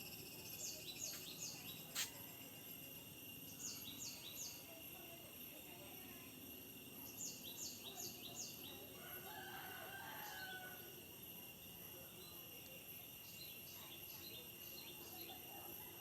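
Small birds chirping in quick runs of three or four falling notes, repeated every few seconds, over a steady high insect drone. A rooster crows faintly once near the middle, and there is a single sharp click about two seconds in.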